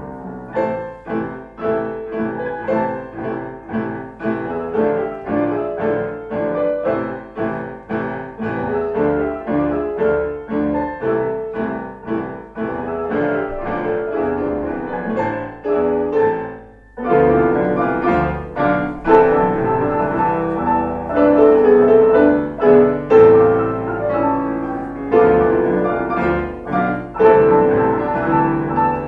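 Piano or keyboard music, a tango, played in quick, rhythmic notes. It breaks off briefly about 17 seconds in, then resumes louder.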